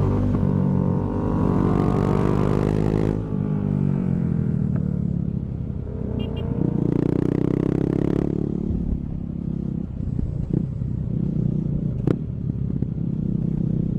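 KTM 390's single-cylinder engine, run with the dB killer removed from its exhaust, revving up under acceleration, easing off about three seconds in, then revving up again and settling back to a lower, steady note. A single sharp click comes near the end.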